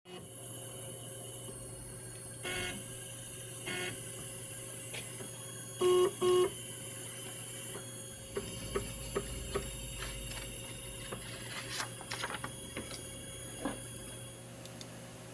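Bravoprodigy mini CNC engraving machine running: a steady hum under short pitched whirs as its axes move, the loudest two close together about six seconds in, then a run of light clicks and ticks.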